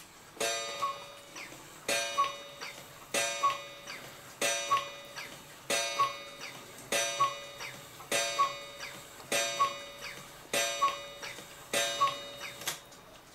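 Black Forest cuckoo clock calling the hour, about ten two-note cuckoo calls a little over a second apart, ending with a sharp click. The bellows tops are too large for this clock, so the owner finds it struggles to lift them and the cuckoo call does not sound right.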